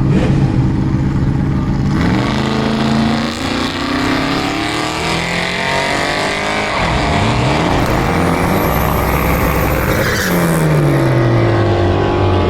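Car engines at a drag strip revving and accelerating hard, several at once, with engine notes climbing and then dropping as cars go past. A high rising whine comes in near the middle.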